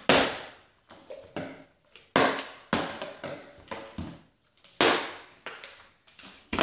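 Small plastic water bottles flipped and landing on a hardwood floor: a string of sharp thuds and clatters about a second apart, the loudest at the very start, about two and three seconds in, and near five seconds.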